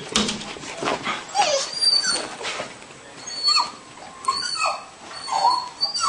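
Dog whining and yipping in a string of short high-pitched whimpers, excited at a squirrel it can't get to.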